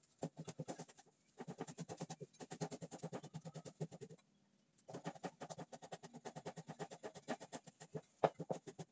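A cleaver chopping red chillies on a round wooden chopping board: fast, even chops several a second, in three runs with short pauses about a second in and again near the middle.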